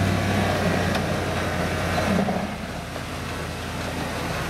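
A 4x4's engine running at low revs as the vehicle crawls over a trail obstacle, swelling briefly about two seconds in.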